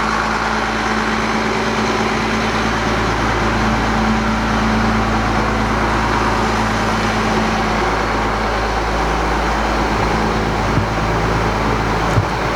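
Tractor's diesel engine running steadily at a constant speed, with an even low hum.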